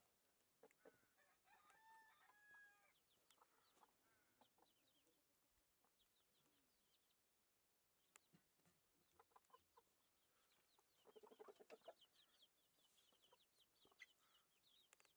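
Domestic chickens clucking quietly, with a louder run of clucks about eleven seconds in, and many faint, quick high chirps.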